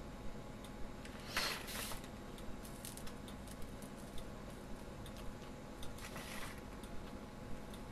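Soldering iron tinning the ends of copper wire coated in soldering paste: two brief hisses of flux sizzling, about a second in and about six seconds in, with faint clicks of the wire being handled.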